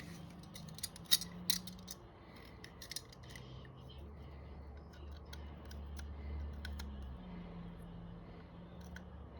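A few sharp clicks and snips of a small hand tool trimming leftover plastic from injection-moulded RC kit parts, mostly in the first three seconds, over a faint low hum.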